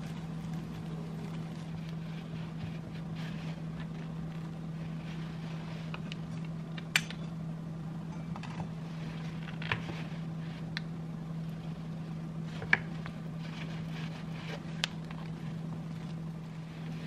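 Metal butter knife spreading thick paste on a slice of bread, with faint scraping and four sharp clicks of the knife, over a steady low hum.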